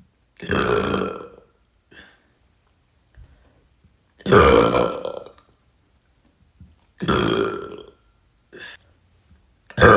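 A woman burping, a mix of closed-mouth and open-mouth burps. Four loud burps of about a second each come roughly three seconds apart, with short faint sounds between them.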